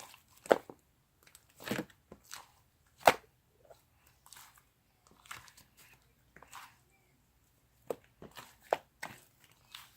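Slime being squeezed and pressed by hand, giving irregular wet pops and crackles, the loudest a little after three seconds in.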